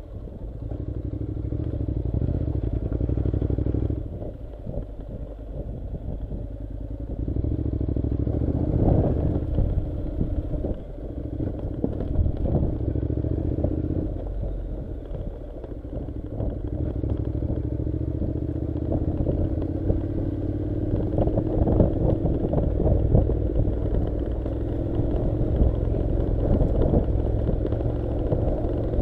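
Honda NC700's 670 cc parallel-twin engine pulling at low speed over a stony dirt track, dropping back twice and then rising slowly as the throttle opens, with gravel clattering under the tyres.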